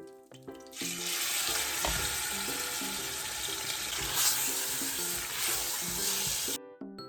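Food frying in hot oil in a pan, a loud sizzle that starts about a second in and cuts off suddenly near the end, over light plucked-string background music.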